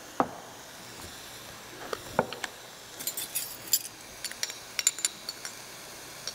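Spice jars and measuring spoons clinking and tapping as dry spices are measured out: a few scattered knocks and short ringing pings, then a quicker run of light clicks and clinks over the last few seconds.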